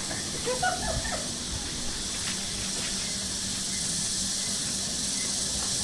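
Steady high-pitched outdoor hiss, with a few faint short calls or voice sounds between about half a second and a second in.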